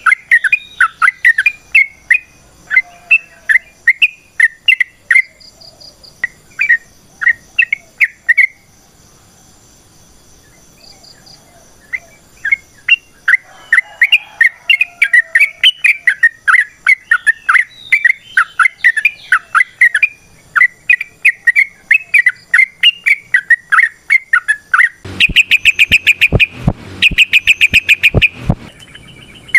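Yellow-vented bulbul (trucukan) singing long, fast runs of sharp chirping notes, breaking off for a few seconds about a third of the way through. Near the end the notes come denser and faster, with sharp clicks.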